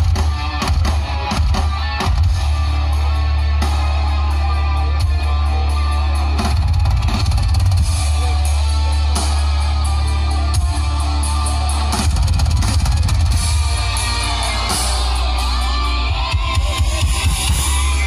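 Music with guitar and drums played loudly through a large outdoor sound system of stacked speaker cabinets, with a strong deep bass.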